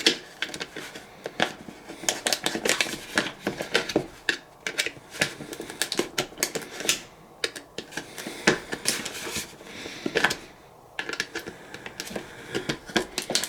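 Hard shell of a dried gourd being forced and cut open: irregular sharp clicks and cracks, with brief lulls.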